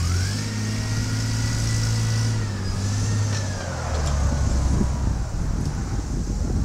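An engine revving up and holding high, with a whine that climbs and holds with it, then easing back down about three to four seconds in to a lower, steady run.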